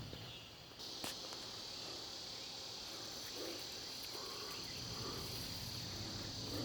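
Steady, high-pitched trilling chorus of crickets, beginning about a second in, with a single click just after it starts.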